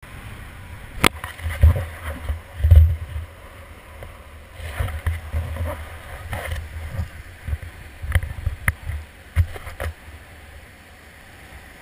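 Wind buffeting the camera microphone in gusty surges, over the wash of shallow surf. A few sharp clicks: once about a second in, then three more in quick succession near the end.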